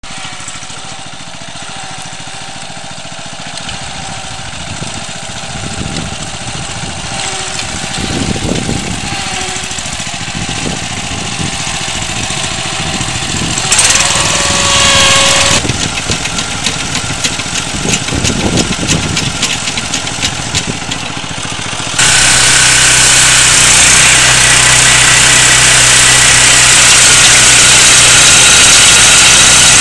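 Engine of an agria 2500 walk-behind two-wheel tractor running while it drives a rotary stone burier, the sound rising and falling. There is a brief louder whine about halfway. About three-quarters in the sound changes abruptly to a louder, steady engine note.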